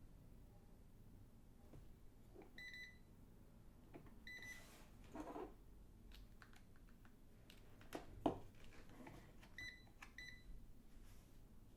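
Digital multimeter giving four short high beeps as its buttons are pressed, with faint clicks and handling knocks between them; the loudest is a single knock a little past eight seconds in.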